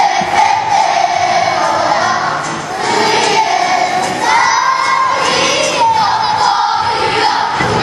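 Children's kapa haka group singing and chanting in unison in Māori, many high voices holding a steady pitch with short breaks between phrases.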